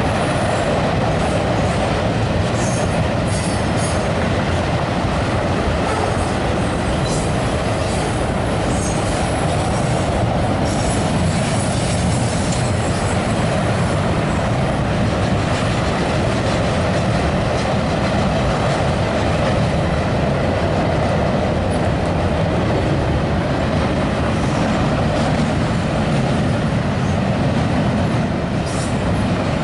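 Canadian Pacific freight train's autorack and double-stack container cars rolling across a steel truss railway bridge: a steady, loud rumble and rattle of the wheels, with scattered sharp high clicks.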